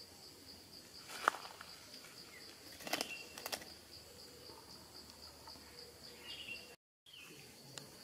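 Steady, evenly pulsing high chirr of insects in woodland. Over it come a few sharp clicks and scrapes, one about a second in and a cluster around three seconds in. The sound cuts out for a moment near the end.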